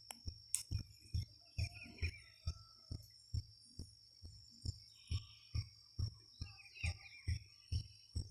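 Distant music carried from another house, with a steady thumping beat of about two and a half beats a second and faint melody, over a steady high insect trill.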